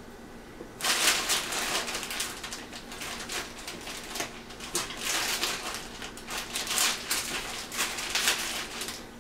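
Grapes being pulled off their stems and dropped into a blender jar: a run of rustles and light clicks and knocks that starts about a second in.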